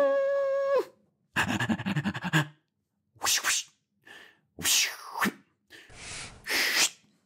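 Voiced cartoon dog noises: a held whining hum for about a second, then a string of short breathy puffs, sniffs and huffs, one sweeping downward partway through.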